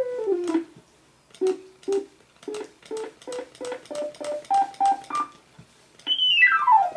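Macintosh Plus built-in speaker playing simple synthesized notes from its music demo. A short falling run comes first, then a rising scale of short notes at about three a second, and near the end a tone glides down and back up.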